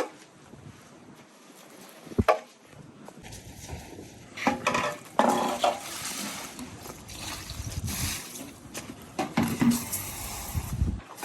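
Water sloshing and splashing in irregular bursts as a muddy door mat is washed, with one sharp knock about two seconds in.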